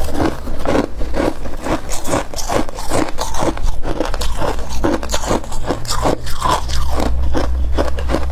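Freezer frost being bitten and chewed close to the microphone: a rapid run of crunches, several a second, with some scraping, over a steady low hum.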